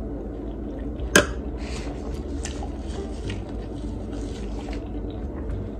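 Close-up chewing and wet mouth sounds of someone eating, soft and scattered, over a steady low hum. About a second in, a single sharp click, the metal fork set down on the ceramic plate.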